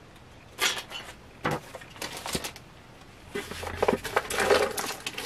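Jewelry being handled: a few separate clicks and rustles, then a busier stretch of clicking and rattling from about three and a half seconds in, as pieces are set down and a chunky necklace is picked up.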